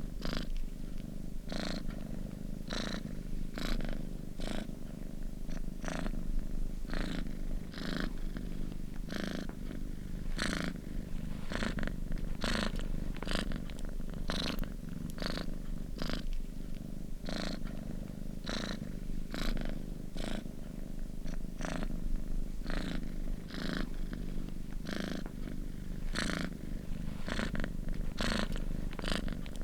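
Domestic cat purring continuously: a steady low rumble with a soft hiss repeating about every two-thirds of a second.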